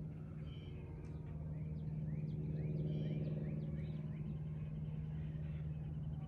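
Steady low engine hum running without change, with a run of short rising chirps about two to four seconds in.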